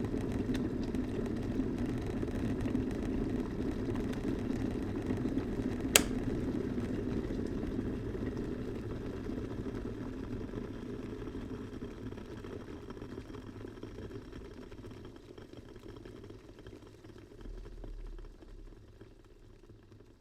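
Electric kettle at a rolling boil, its switch clicking off once about six seconds in; the bubbling then slowly dies away as the water stops boiling.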